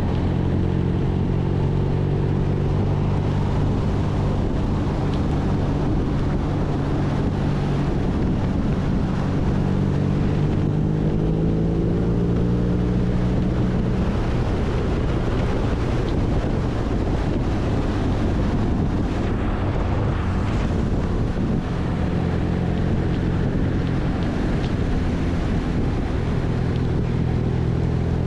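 BMW R nineT's air/oil-cooled boxer twin running under way at a fairly steady speed, with wind rushing over the microphone. The engine note is clear for the first half, drops back under a rushing wind-and-road sound from about halfway in, and comes back clearly near the end.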